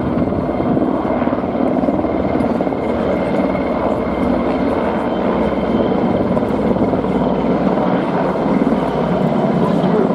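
Four military helicopters flying over in formation: the rotors and turbine engines make a steady, dense rotor beat over a low rumble, getting a little louder near the end as the formation comes closer.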